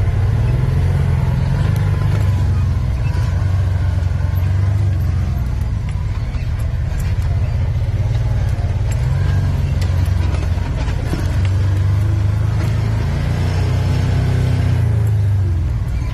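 Side-by-side UTV engine running under way off-road, heard from inside the open cab, the engine note rising and falling with the throttle, climbing late on and dropping near the end.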